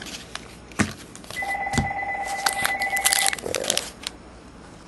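A phone ringing with a trilling electronic ring for about two seconds, starting a little over a second in. Around it come the crinkle and clicks of a foil trading-card pack being handled.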